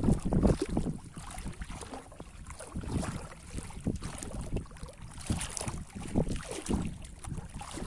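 Wind buffeting the microphone outdoors in irregular gusts, over a steady hiss.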